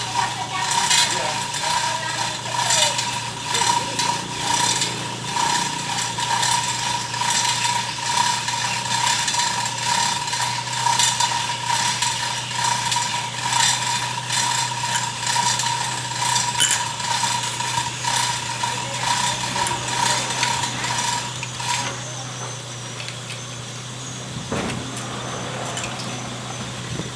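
Dense mechanical rattling and clicking over a steady high whine and a low hum; the rattling and the whine stop about 22 seconds in, leaving only the hum.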